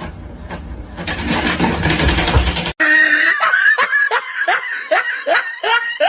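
A person laughing in a quick string of short falling bursts. Before this, after a sudden cut, there are a few seconds of noisy rumbling with some knocks.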